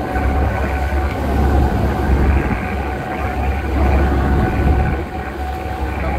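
Boat engine running steadily under way, with a low, gusty rumble of wind on the microphone.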